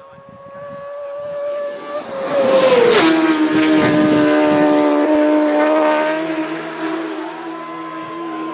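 Racing motorcycle approaching at high speed and flashing past about three seconds in, its engine note dropping sharply in pitch as it goes by, then holding steady and fading as it pulls away.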